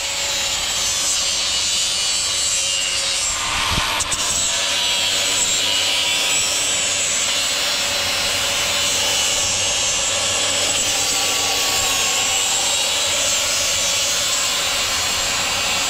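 Angle grinder with a sanding disc grinding down the freshly cut edge of a heavy-gauge steel hopper skirt, a steady, loud grinding hiss of disc on steel while it smooths the cut.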